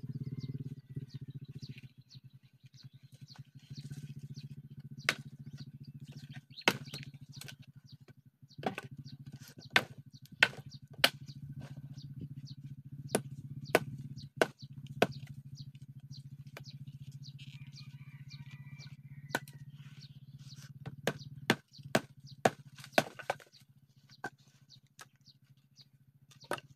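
Bolo knife chopping the dry branches of a long-fallen mango tree: sharp, irregular chops, some in quick runs of three or four, over a low steady hum that fades near the end.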